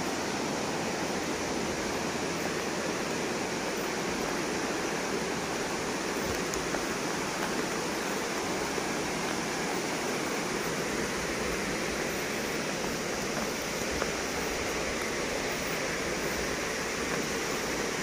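Steady rushing of a waterfall.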